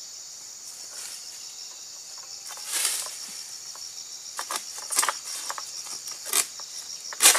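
Insects chirring steadily in a high band, with several short rustling, scraping sounds as an egrek pole-sickle is raised into the crown of an oil palm. The sharpest scrape comes near the end.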